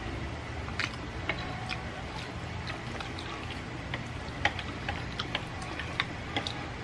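Eating sounds from chewing jajangmyeon noodles, with scattered sharp clicks as steel chopsticks tap and pick through the noodles on the plate, over a steady low hum.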